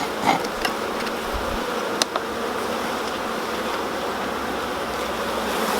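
Honeybee colony humming steadily from an open hive, with a few light clicks as brood frames are worked loose and lifted out.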